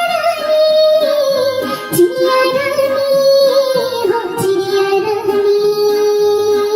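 Children's song: a child-like singing voice holds long, drawn-out notes that slide down in pitch and settle, over a synthesized backing track.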